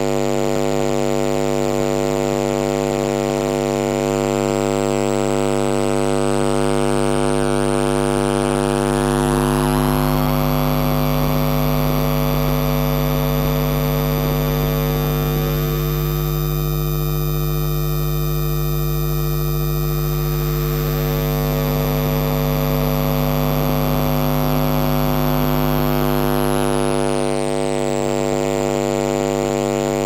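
Vacuum cleaner running steadily: a strong motor hum with a high whine. The whine climbs in pitch about four seconds in, holds, and slides back down a few seconds before the end.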